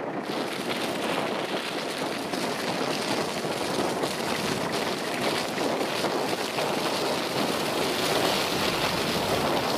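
Lifted 4x4 off-road SUV pushing through a deep, crusted snowdrift close by: its engine working under load and its mud tyres churning the snow, a steady, dense noise that grows brighter and hissier near the end.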